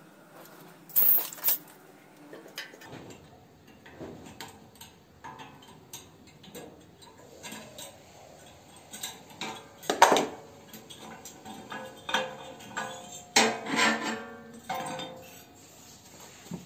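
Irregular metallic clinks, knocks and scrapes as tools and small metal parts are handled against a stainless steel stove frame and its cast iron burner, with the sharpest clinks about a second in and near ten seconds.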